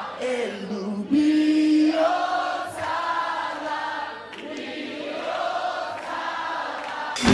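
Singing voices without instruments, with one long held note about a second in.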